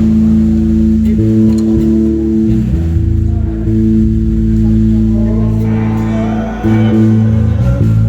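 Live band instruments, with guitar and bass, playing long held chords that change every second or two during a sound check; from about six seconds in, a group of singers joins in.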